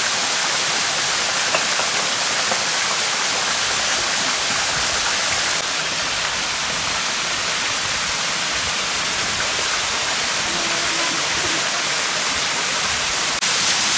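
Small waterfall pouring down a rock face fringed with icicles: a steady rushing hiss of falling water.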